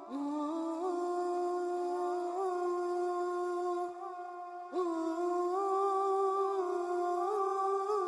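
Background wordless vocal music: a single voice humming long held notes with small turns in pitch, in two phrases, the second starting a little before five seconds in.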